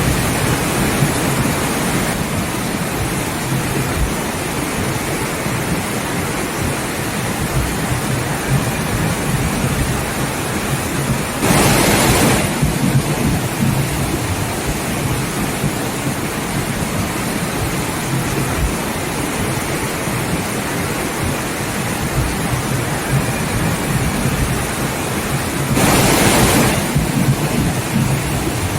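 Steady, dense rushing of water, with two brief louder surges, one about twelve seconds in and one near the end.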